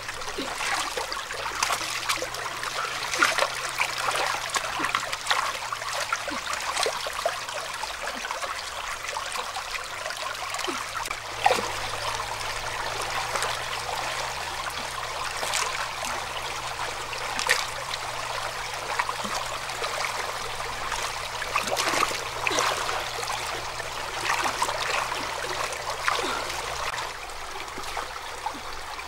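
Shallow stream water trickling steadily, with frequent small splashes and sloshes as hands scoop and work in it; one splash about twelve seconds in stands out louder.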